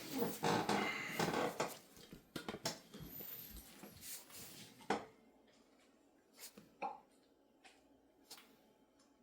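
Hands working on an open laptop's small parts: a busy patch of rustling and light knocks in the first two seconds, then a few scattered sharp clicks, the loudest about five seconds in.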